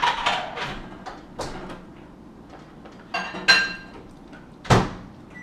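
Kitchen clatter of dishes being handled: a handful of separate knocks and clinks, one of them ringing briefly like glass or crockery, and a sharp knock near the end that is the loudest.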